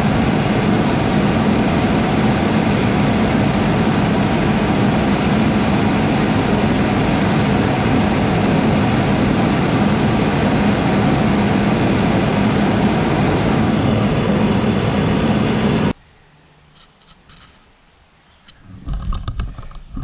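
Gas-fired Frosty T burner running with its flame lit: a loud, steady rush with a faint low hum underneath. The sound stops abruptly about sixteen seconds in.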